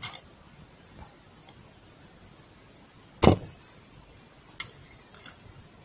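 A sharp click a little over three seconds in and a fainter one over a second later, from push-on spade connectors of the emergency light's NiCd battery pack being fitted to their terminals, over low room noise.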